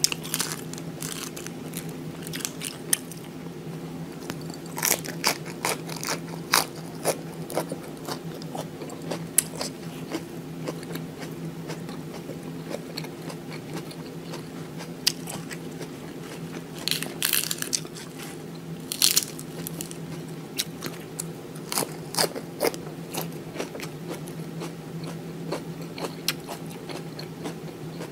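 A person eating close to the microphone: crisp crunching bites and chewing of fresh lettuce and vegetables. Scattered sharp crunches come throughout, thicker in a few spells, over a steady low hum.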